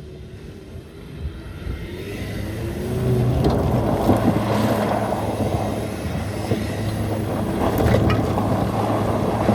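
Ford Mustang EcoBoost's turbocharged four-cylinder engine pulling the car along a dirt trail, getting louder over the first few seconds and then holding steady, with tyre and wind noise and the odd sharp tick of gravel.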